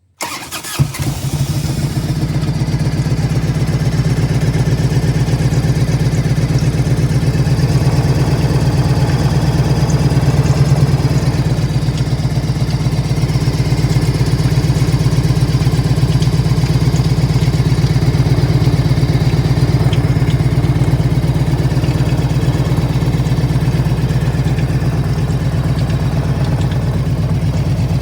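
1998 Harley-Davidson Ultra's air-cooled Evolution V-twin starting and settling into a steady idle. Over the even idle beat come faint irregular ticks, a random ticking that sounds like something bouncing around inside the engine.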